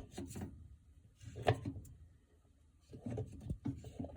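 A washing machine's plastic agitator being handled and set down onto its drive shaft: a sharp click at the start, a knock about a second and a half in, then scattered clattering near the end.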